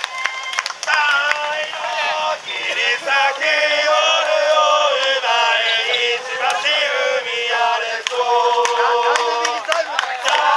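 Supporters chanting a football song in unison: a group of male voices singing, with some notes held for about a second.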